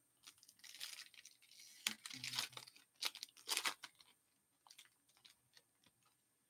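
Hockey card pack wrapper torn open and crinkled by hand for about four seconds, loudest near the middle, then a few light ticks as the cards are handled.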